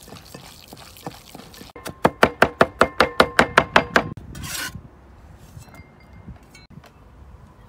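Cleaver chopping garlic on a wooden board: a quick even run of about a dozen strokes, some five a second, with a ringing note from the blade, then a short swish. Before it, faint small sounds of hands kneading sliced pork in a glass bowl.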